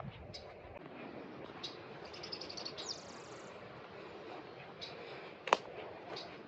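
Small birds chirping in short, scattered high notes, with a quick run of notes and a falling call about three seconds in, over a steady low outdoor noise. A single sharp click about five and a half seconds in.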